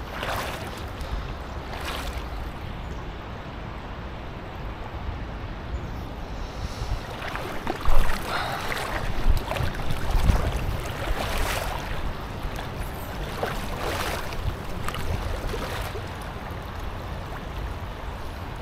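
River water moving and lapping, with wind rumbling on the microphone and a few brief louder noises, the loudest about eight seconds in.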